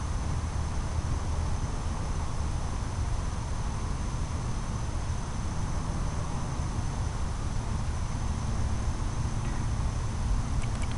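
Steady evening insect chorus, a constant high trill, over a low steady rumble.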